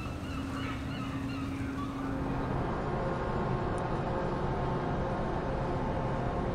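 Steady outdoor wind and machinery noise on a ship's deck with a low hum. Faint wavering voices or calls sound over it for the first two seconds, then the noise changes to a steadier hum with faint held tones.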